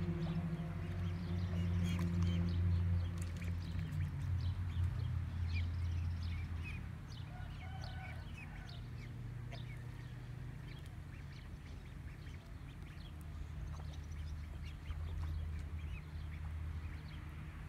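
Ducklings peeping in many short, high chirps, over a steady low hum. A held low tone fades out in the first few seconds.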